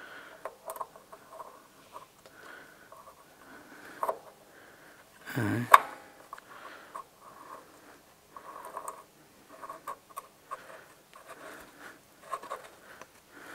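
Quiet, irregular metallic scraping and small clicks as a threaded wheel-bearing retaining ring is spun by hand onto the stub axle's thread. There is one louder short noise about five and a half seconds in.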